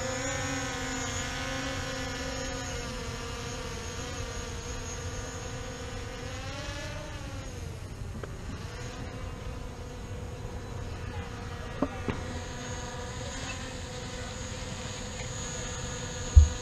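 Multirotor drone's motors and propellers buzzing steadily as it flies overhead. The pitch swings up and back down about halfway through. A couple of faint clicks come later, and a brief low thump comes near the end.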